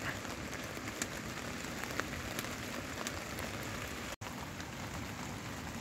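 Steady rain falling on a tarpaulin shelter, an even hiss with a few sharp ticks scattered through it. The sound cuts out for an instant a little after four seconds.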